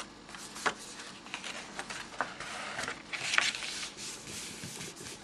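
A folded sheet of origami paper rustling and crinkling as it is opened out and pressed flat by hand, with a louder rustle about three seconds in.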